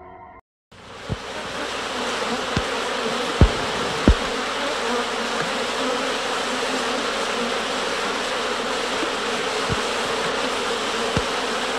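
Dense, steady buzzing noise from the installation's soundtrack. It starts abruptly after a brief moment of silence, with a few short low thumps through it.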